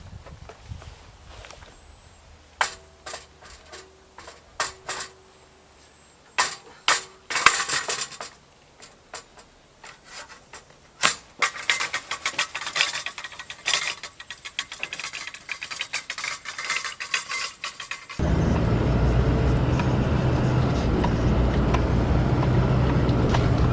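Scattered clicks and knocks with a few brief steady tones, then about 18 seconds in a vehicle engine starts and keeps running steadily.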